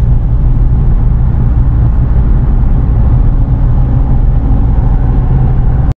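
Car driving at road speed, heard from inside the cabin: a steady low rumble of engine and tyre noise. It cuts off suddenly at the very end.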